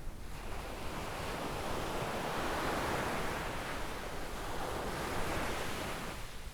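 Gentle sea waves breaking and washing up a sandy shore: the surf swells up about half a second in, is loudest around the middle, and fades away near the end.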